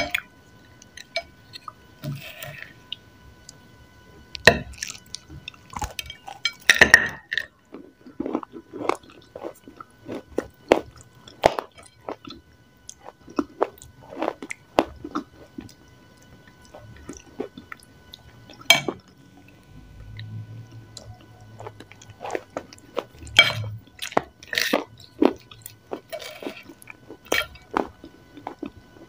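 Close-miked chewing and crunching of crumbly grey chalky lumps, with a fork scraping and tapping on a ceramic plate: irregular short crackles and clicks.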